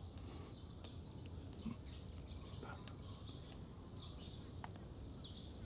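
Faint birds chirping in short, scattered calls over a low steady hum of room tone.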